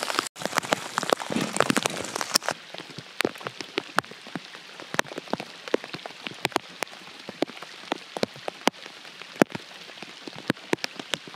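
Rain falling on a lake: a steady patter of drops hitting the water, with single close drops ticking sharply. It is heavier for the first couple of seconds, then lighter and sparser.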